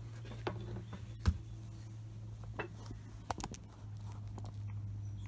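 Handling noise of hands working an electrical cable: scattered clicks and knocks, the sharpest about a second in and a quick few about three and a half seconds in, over a steady low hum.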